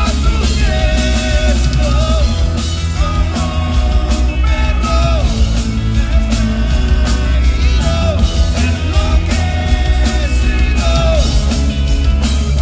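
Live rock band playing loud, driven by a full drum kit with crashing cymbals over heavy bass, and a melody line that slides up and down in pitch.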